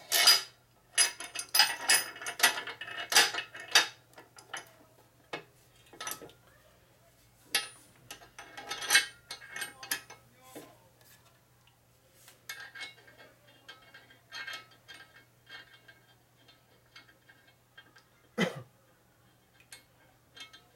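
Metal hardware clinking and clanking as bolts and clamps are fitted to an angle plate to hold a Harley knucklehead engine case for milling: quick clusters of clicks and knocks, busiest in the first few seconds, with one heavier clunk near the end. A faint steady hum runs underneath.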